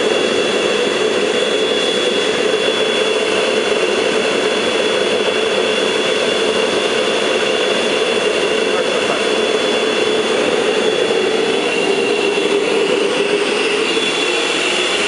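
Homemade propane gas forge running with a vacuum cleaner blowing air into its burner: a steady, loud rush of blower and flame with a thin high whine on top.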